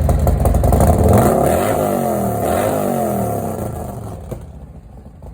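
A vehicle's engine accelerating and driving away. Its pitch rises and falls, and the sound fades out over about three seconds.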